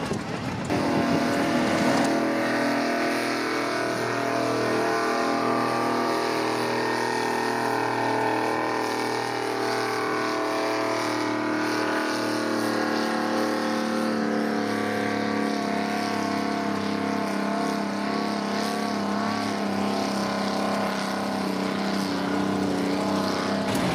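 Vintage tractor engine working hard under load as it drags a tractor-pulling weight-transfer sled. It runs at nearly constant revs with a steady note.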